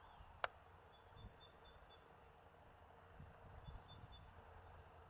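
Faint outdoor ambience: a small bird gives two short runs of high, quick chirps, and a single sharp click sounds about half a second in.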